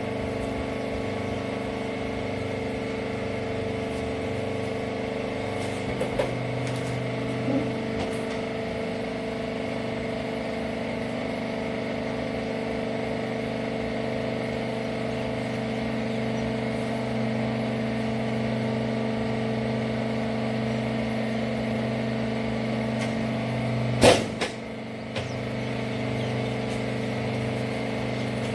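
Rag baling machine running with a steady motor hum, a slight change in its tone partway through, a few light clanks and one loud bang near the end.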